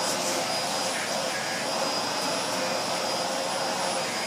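Dyson DC24 upright vacuum cleaner running steadily: a rush of air with a thin high whine from the motor.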